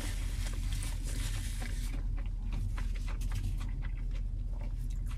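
A paper napkin rubbed across the mouth with a soft rustle for about two seconds, then scattered small clicks and rustles of handling food and chewing, over a steady low hum.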